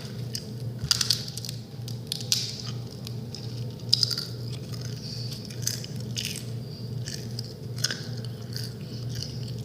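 Crunchy food being chewed: irregular sharp crunches, a few of them louder, over a steady low hum.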